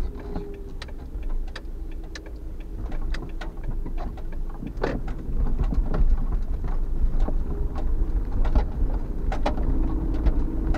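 Suzuki Every kei van driving slowly over snow, heard from inside the cabin: a steady low engine and road rumble with irregular clicks and crackles from the tyres on the snow, growing louder about halfway through.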